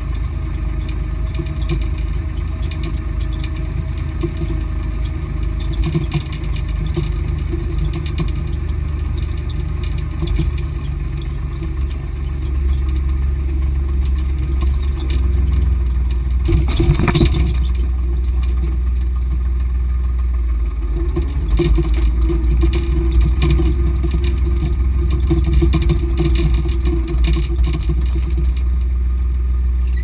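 Volvo BM 430 tractor engine running steadily while pulling a plough, heard inside the cab with the cab rattling. The engine gets louder about twelve seconds in, and there is a brief clatter a few seconds later.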